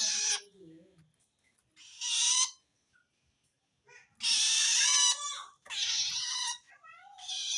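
Long-tailed shrike giving harsh, rasping screech calls, about five in a row at uneven spacing, the longest lasting about a second. This call is the sign of a shrike that feels threatened by another shrike.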